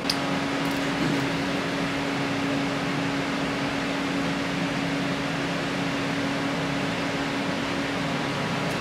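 A steady mechanical hum with an even hiss, like a fan or blower running, starting with a short click right at the start.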